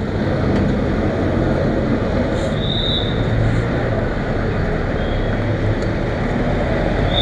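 NK 150 dirt bike's single-cylinder, air-cooled 149 cc engine idling steadily while the bike stands still.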